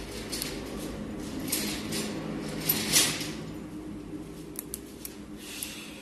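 Scratchy scraping and rustling as a test-lamp lead is rubbed against the enamelled copper coil leads of a ceiling fan stator, loudest about three seconds in, over a faint steady low hum.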